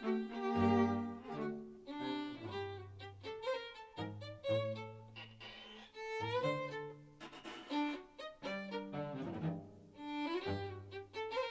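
Background music: a melody line over sustained low bass notes that change about every second.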